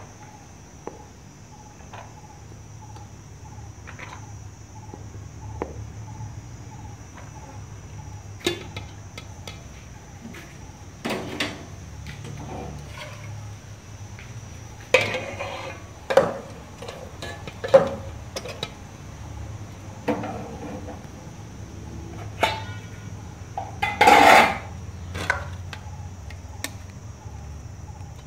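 Metal spoons scraping and knocking against aluminium cooking pots as cooked rice and beef masala are spooned in layers. There are scattered clinks throughout, a run of louder clatters past the middle, and the loudest clatter near the end.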